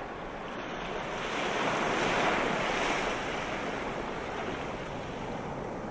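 Ocean surf: a wave washing in, swelling about two seconds in and easing back to a steady hiss.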